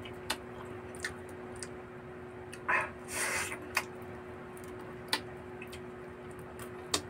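Close-up eating sounds of a man eating barbecued chicken feet (adidas) from a skewer: scattered lip smacks and mouth clicks, with a longer wet sucking slurp about three seconds in. A faint steady hum runs underneath.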